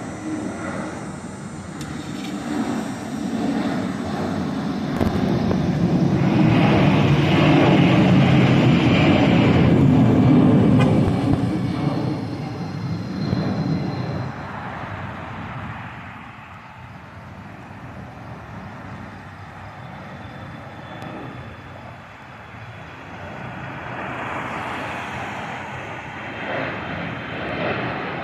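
Airliner's engines passing by, swelling to a loud peak in the first few seconds and then fading away, with the noise building up again more softly near the end.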